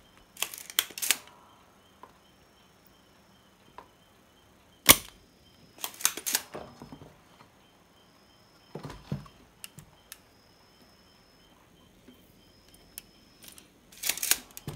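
Sharp snapping clicks of desoldering work on a transistor's leads on an amplifier board, coming in several short clusters: about a second in, around five and six seconds, nine seconds, and near the end. A faint steady high tone runs underneath.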